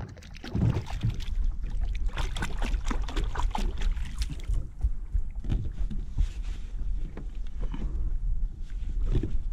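Hands splashing and rinsing in lake water at the edge of a paddleboard: a quick run of splashes over the first few seconds, then sparser, quieter sloshes. A steady low wind rumble on the microphone lies under it.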